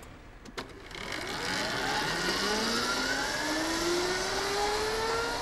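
Electric motor of the Agni X01 racing motorcycle accelerating hard: a whine that starts about a second in and rises steadily in pitch, over a rushing noise. Two short clicks come just before it.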